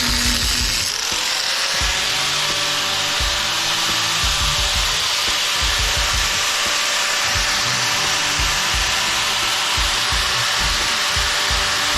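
Power tool cutting into a small PTAC unit motor, running steadily with a hissing cut and a tone that rises about a second in as the tool takes up speed.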